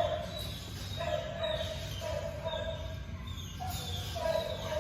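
Dogs barking over and over, a bark roughly every half second to a second.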